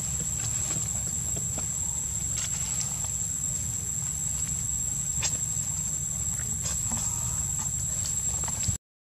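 Steady outdoor background noise: a low rumble under a thin, steady high-pitched whine, with a few faint ticks. The sound cuts out for a moment near the end.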